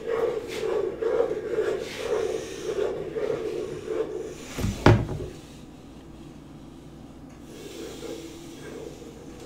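Wooden spoon stirring cooking toffee in a metal pot, scraping the pot's bottom and sides in regular strokes about two to three a second. About five seconds in there is a single loud knock, then the stirring goes quieter and picks up faintly again near the end.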